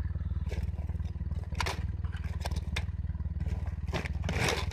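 Broken hard-drive pieces clicking and clattering as they are picked up and shifted by hand, with a cluster of clatter near the end, over the steady low drone of an engine running.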